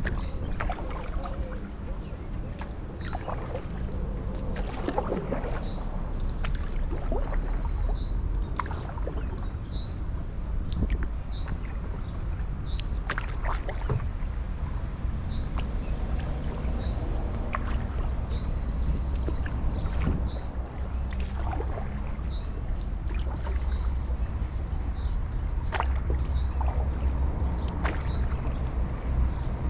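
Paddle strokes from a stand-up paddleboard dipping and splashing in canal water, over a steady low rumble. A small bird repeats short high chirps every second or two.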